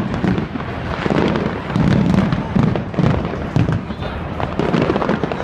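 Fireworks going off in quick succession: many sharp cracks and crackles over repeated deep booms.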